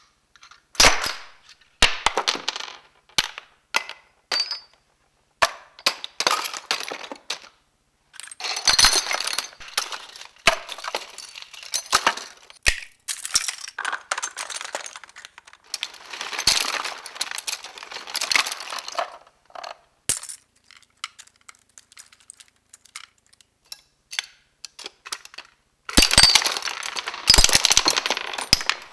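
Small hard objects, plastic action figures, pencils and other clutter, dropping and clattering onto a pile of toys and junk. The sound comes as separate sharp clicks and rattling bursts, with a lull of a few seconds near the end, then a dense clatter.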